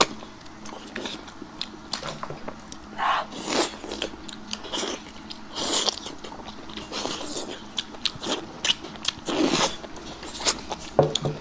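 Close-miked eating of spicy beef intestines: biting and chewing with many sharp, irregular mouth clicks and several longer bursts of noise.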